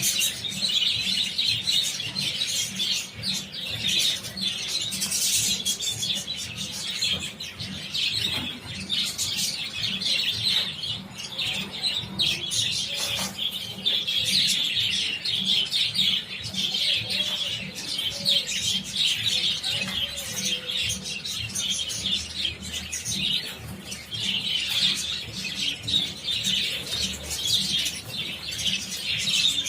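A flock of budgerigars chattering and chirping continuously, with wings fluttering among the calls.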